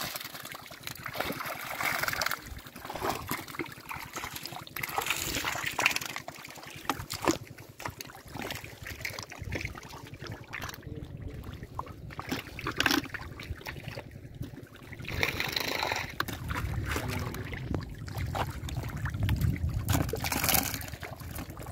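Hands digging and scooping in shallow muddy water: irregular splashing, sloshing and squelching of wet mud, broken by scattered short knocks and slaps.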